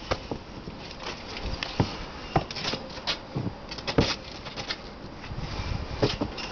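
A ferret scrabbling and bumping against a wire cage panel and board: irregular taps, clicks and knocks of claws and body on the metal bars, with two louder knocks in the middle.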